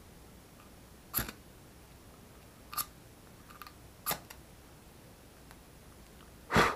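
Everlasting match struck again and again against its striker: several short, sharp scratches a second or more apart, the last one near the end the loudest, as the match catches and burns.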